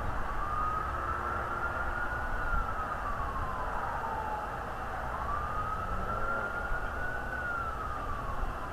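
Siren wailing, its single tone rising slowly and then falling twice, over a low steady rumble.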